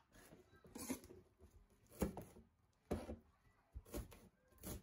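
A chef's knife chopping fresh green leaves on a plastic chopping board, in slow, faint strokes about once a second.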